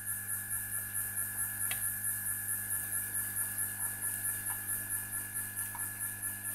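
Steady electrical hum with a high-pitched whine that pulses about four times a second, and a faint tick about two seconds in.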